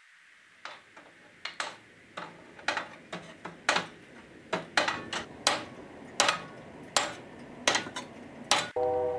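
A hammer striking over and over, in sharp, irregular strokes with a brief metallic ring, about two a second, starting about half a second in.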